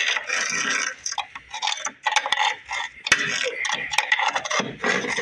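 Metal scraping, rattling and clinking in a cavity of a car body, with a couple of sharp clicks, as packed mouse-nest material is dug out.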